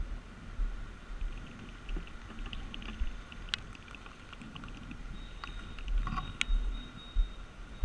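Motorcycle ride heard through a GoPro housing: a muffled, irregular low buffeting of wind on the microphone, with a faint steady high whine. A run of faint ticks and two sharp clicks come through in the middle and later part.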